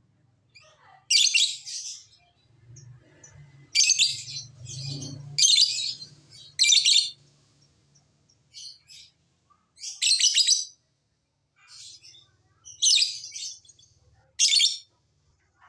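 Lovebirds giving shrill, high-pitched chattering calls in about seven short bursts, each under a second long, with quieter chirps between them.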